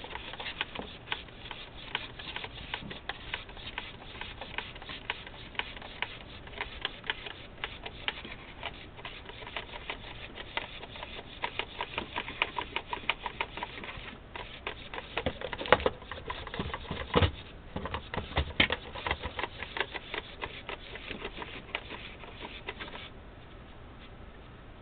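Two HK-5320 1.9-gram micro servos, powered at 8.4 V from a 2-cell pack, buzzing and chattering in rapid short bursts as they are driven back and forth. There are a few louder knocks in the middle, and the chatter stops near the end.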